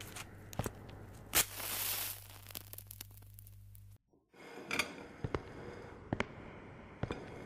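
Crackly old film soundtrack: scattered clicks over a low hum that cuts out abruptly about four seconds in, with a brief drop-out. A short scratchy hiss sounds about a second and a half in.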